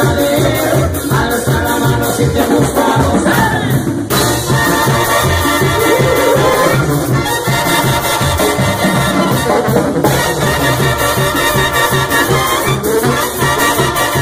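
Mexican banda music: brass with trumpets and trombones over pulsing bass and a steady, driving percussion beat.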